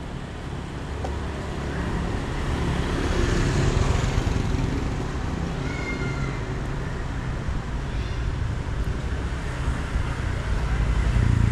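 Street ambience with the low rumble of passing motor traffic, swelling a few seconds in and again near the end, and one brief high-pitched call about six seconds in.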